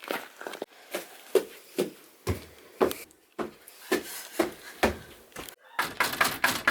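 A run of separate knocks and thuds in a small room, about two a second, with a quicker cluster of them near the end.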